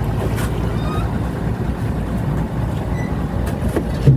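Fishing boat's engine running steadily with a low drone, and a short knock near the end.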